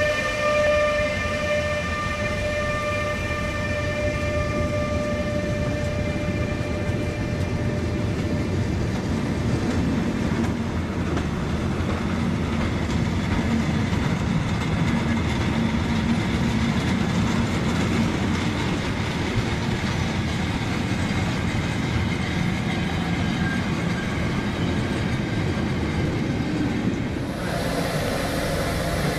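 Siemens Taurus electric locomotive passing with a steady, high whine from its traction converters that fades away over the first several seconds. The rumble and clatter of the train's wagons rolling by follows. Near the end the sound changes abruptly.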